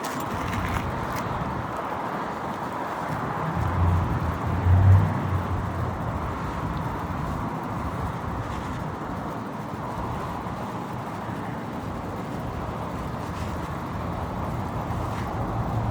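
Steady road traffic noise, with a low vehicle rumble swelling and fading about four to five seconds in.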